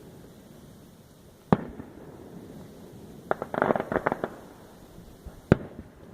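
Fireworks display: a sharp bang about a second and a half in, a quick run of crackling pops in the middle, and another sharp bang near the end.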